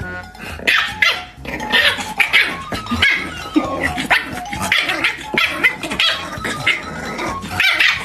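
A puppy yapping at a large adult dog in a rapid run of short, high yaps, over and over.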